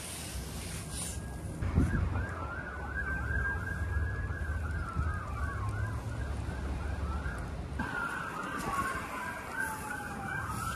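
Police car sirens: a fast pulsing yelp over a slower falling wail, starting about two seconds in, breaking off briefly near the eight-second mark and starting again. A steady low rumble runs underneath.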